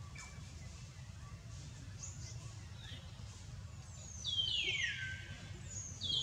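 Infant rhesus macaque giving high, shrill cries that slide downward in steps: a few brief ones early, the longest starting about four seconds in, and another near the end, over a low steady rumble.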